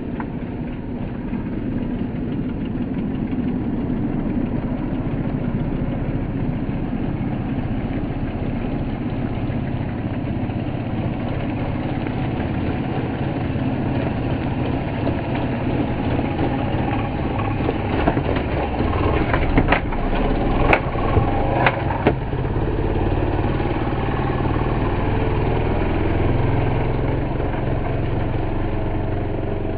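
Small dirt bike's engine running steadily as it is ridden around. A few sharp knocks stand out about two-thirds of the way through.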